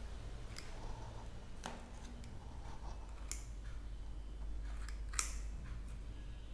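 A few sharp clicks and taps of a kitchen utensil against dishes, the loudest about five seconds in, as ice cream is scooped onto the milkshakes. A low steady hum runs underneath.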